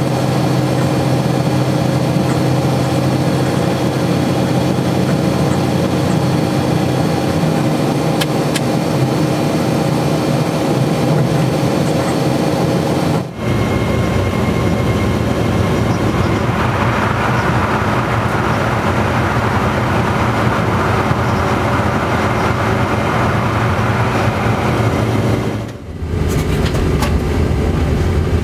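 Steady running noise and electrical hum inside a train's driver's cab at speed, changing abruptly twice, about thirteen seconds in and again near the end. In the tunnel stretch between them, a louder hiss rides over the running noise.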